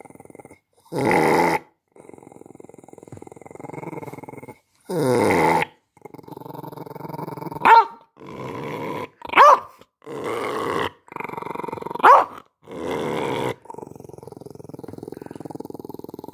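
Small black-and-tan spaniel growling angrily in long rumbles, with two louder snarls about one and five seconds in and three short sharp barks in the second half.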